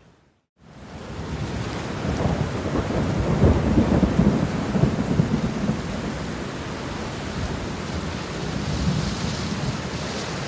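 Thunderstorm sound: steady rain fading in after a moment's silence, with a long roll of thunder that builds about two seconds in, rumbles for several seconds, then eases back to the rain.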